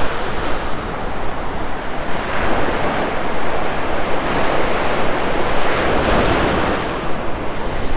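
Ocean surf breaking and washing up a sandy beach, swelling twice, with wind buffeting the microphone.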